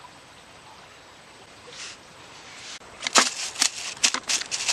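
Freshly caught tilapia flapping in a plastic bucket, a rapid, irregular run of sharp slaps and rattles starting about three seconds in, after a faint steady outdoor hiss.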